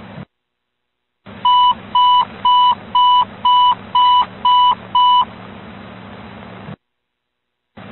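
Fire dispatch alert tone over a radio scanner: eight short, evenly spaced beeps of one pitch, about two a second, over radio channel hiss. The channel keys up about a second in and drops out to silence near the end.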